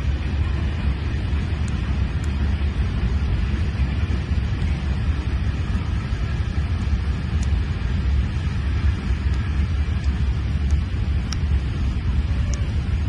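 Wind buffeting the microphone: a steady, low, fluttering rumble.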